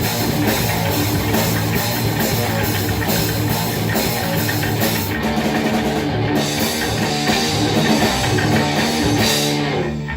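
Loud grindcore/metal band playing fast drums and distorted guitar, the sound thinning out just before the end.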